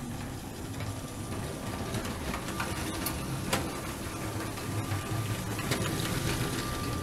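Motorized Lego Holiday Train running laps of plastic track on a trial run, driven by a Power Functions motor fitted in its tender: a steady low motor whir with scattered sharp clicks, getting a little louder in the second half as the train passes close.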